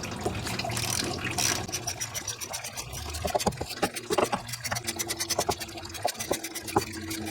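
Socket ratchet clicking fast and evenly while the 15 mm idler pulley bolt is backed out.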